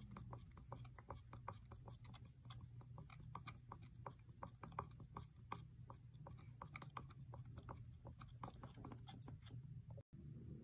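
Wooden stir stick stirring two-part tub and tile paint, hardener mixed in, in a plastic bucket: faint, quick, irregular clicks and scrapes, several a second.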